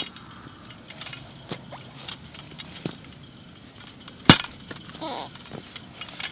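Yard Butler steel turf plug cutter being stamped and jabbed into hard-packed soil: scattered light clinks and knocks, with one sharp metallic clank about four seconds in. The ground is too hard for the cutter to bite into.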